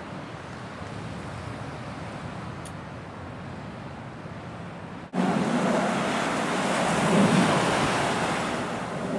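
Steady wind noise, then about five seconds in a cut to the much louder roar of a jet airliner climbing overhead after takeoff, swelling to a peak and easing off.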